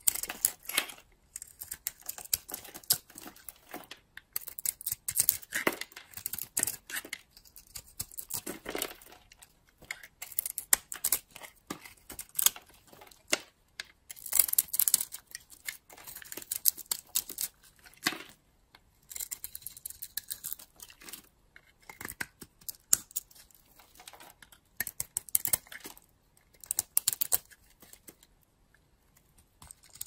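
A small flat steel blade carving into a bar of dry soap: repeated crunchy scraping and crackling cuts in short, irregular bursts with brief pauses between strokes.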